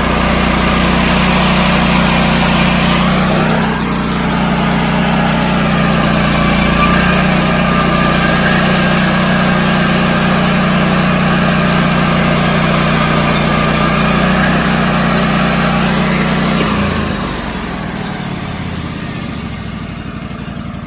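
Portable band sawmill running, its engine under load as the band blade cuts through a log. About three-quarters of the way through, the engine hum drops out and the sound falls to a quieter steady running.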